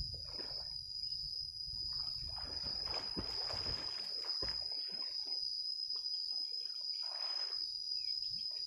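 Insects shrilling steadily and high-pitched, with water splashing and sloshing as a man wading chest-deep in a pond ducks under the surface, about two to four seconds in and again briefly near the end.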